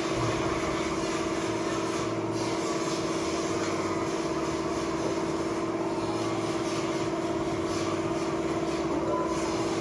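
A freshly swapped 6.2-litre LS V8 in a 1968 Camaro idling steadily, on one of its first runs after the engine swap.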